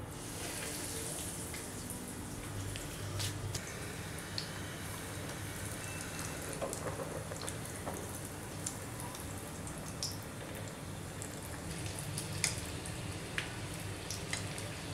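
A panko-breaded chicken mac and cheese ball deep-frying in hot oil: sizzling that starts at once as the ball goes in and holds steady, with scattered sharp pops and crackles throughout.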